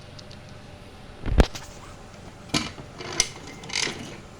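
Removed timing-chain parts being handled: a heavier knock about a second and a half in, then three lighter metal clinks.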